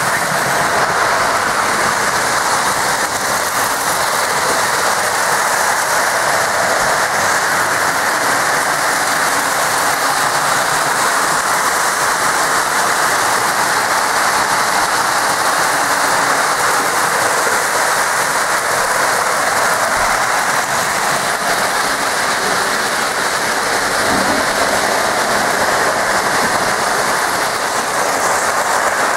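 Several Lionel O-gauge electric model trains running on three-rail track close by, their wheels and running gear making a steady, even rushing rumble.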